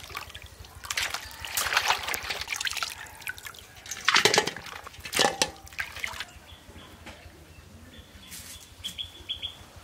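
Water sloshing and splashing as raw cow leg (paya) pieces are washed by hand in a metal bowl, in repeated bursts with two louder splashes about four and five seconds in. It turns quieter after about six seconds.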